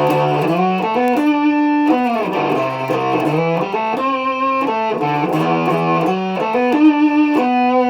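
Electric Stratocaster playing a riff of held notes through a germanium-transistor Tone Bender MK 1.5 fuzz pedal, its volume and fuzz knobs set at half.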